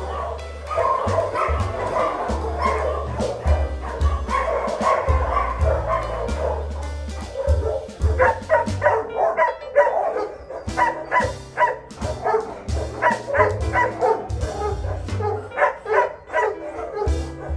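Background music with a steady bass line, with shelter dogs barking and yipping over it in short, repeated calls that come thick and fast from about halfway through.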